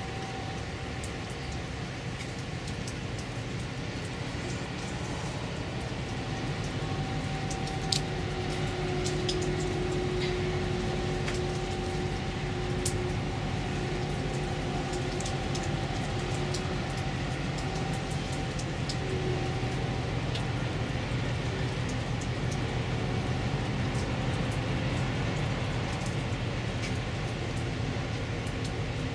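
Low steady drone of a passing container ship, with faint steady tones above it. It grows a little louder about eight seconds in, with scattered faint ticks.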